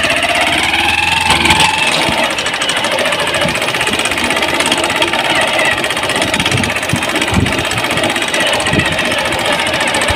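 Small motorcycle engine running steadily with a rapid, even chug.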